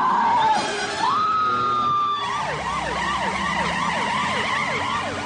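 Emergency vehicle sirens: a rising wail held for about a second, then from about two seconds in a fast yelp, sweeping down and up about three times a second.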